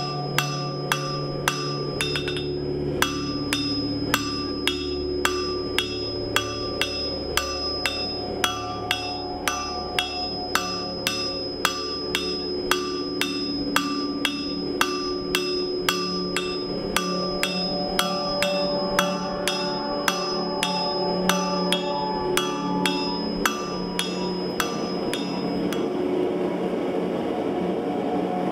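Hand hammer striking red-hot steel on an anvil in a steady rhythm, about three blows every two seconds, each with a bright metallic ring. This is a spatula blade being flattened and drawn out at the anvil. The blows stop shortly before the end.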